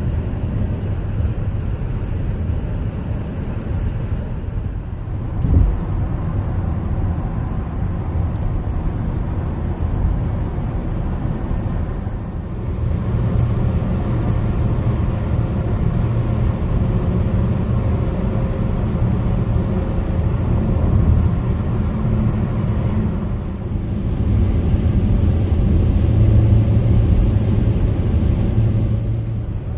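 Road noise inside a car's cabin at motorway speed: a steady low rumble of tyres and engine, with a brief thump about five and a half seconds in.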